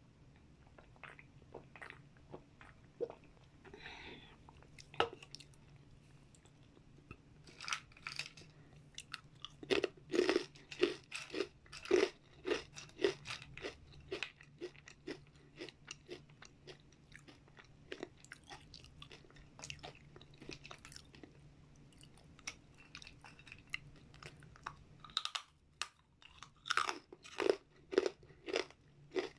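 Close-up crunching and chewing of dried vegetable chips in the mouth: rapid bursts of crisp bites, fastest in two stretches, around the middle and near the end. A faint steady low hum underneath cuts out about 25 seconds in.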